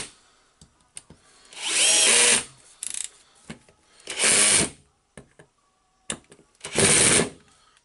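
Cordless drill-driver driving screws into a power-tool housing: three short runs, each under a second with a rising whine, about two seconds apart, with small clicks and handling knocks between them.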